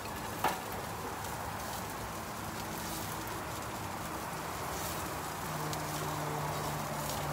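Meat sizzling on a barbecue grill: a steady hiss with faint crackles and one sharper click about half a second in. A low steady hum comes in about two-thirds of the way through.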